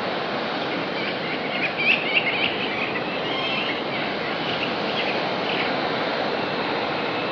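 Steady rushing roar of water pouring over a dam. Short, high bird calls come through it from about one and a half to six seconds in.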